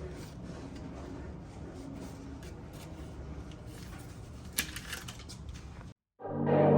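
Faint steady background noise with a few sharp handling clicks near the end; it cuts off abruptly and music starts just before the end.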